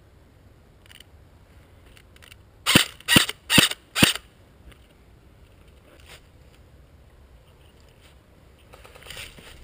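Airsoft electric rifle fired four single shots in a row, about two a second, each a sharp, loud pop.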